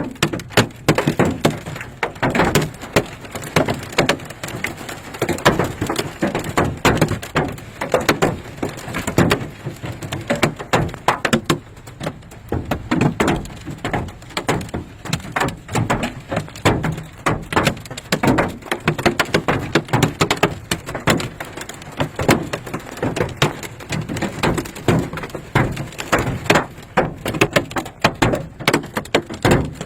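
Large hailstones, some golf-ball size, pounding an SUV's body and roof in a dense, irregular clatter of hard hits, many each second. The hail is big enough to dent the metal and break the headlight.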